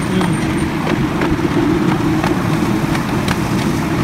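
Miniature railway train rolling along its track: a steady low rumble with light, irregular clicks from the wheels on the rails.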